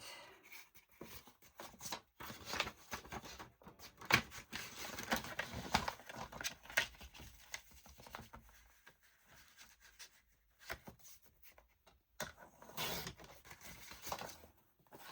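Paper being cut and handled at a craft table: irregular snips and rustles with short quiet gaps.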